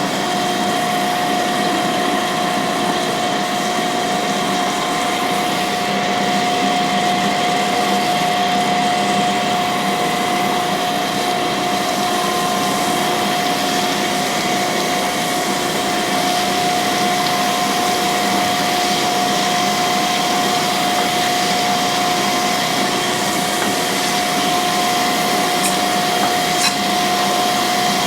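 Cam grinding machine grinding a camshaft lobe under a spray of coolant: a steady whine over a constant hiss, with a few light ticks near the end.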